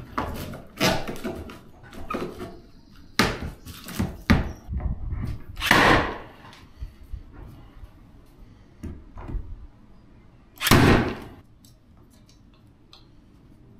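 Milwaukee M12 battery cable stapler firing insulated steel staples into a timber board ceiling to fix an electrical cable: a series of sharp clacks and knocks, with two louder, longer shots about six seconds in and near eleven seconds. Quieter near the end.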